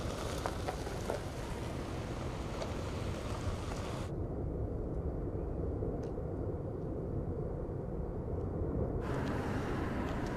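Erupting volcano's steady deep rumble, with a few faint sharp cracks. The higher hiss falls away for several seconds in the middle.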